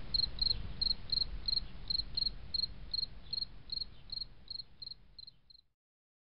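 Cricket chirping steadily at about three chirps a second over a low rumble, fading out and stopping near the end.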